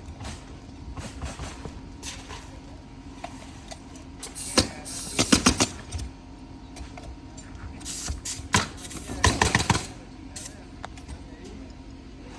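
Roofing nails being driven into a new asphalt shingle: groups of sharp metal strikes, one burst about four and a half seconds in and another around nine seconds in, over a steady low hum.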